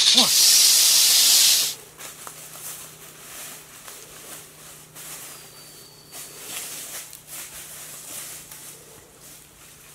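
Cobra hissing: one loud hiss lasting under two seconds that cuts off abruptly. After it comes faint forest background with scattered light ticks.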